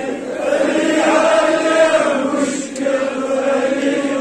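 Men chanting a devotional praise verse (madh) for Imam Ali in long held lines, with many voices together; the chant breaks off briefly past the middle and picks up again.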